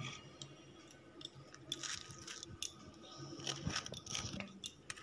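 Faint handling sounds of toasted burger buns being picked up and moved about on a plate: scattered light crackles and taps over a low steady hum.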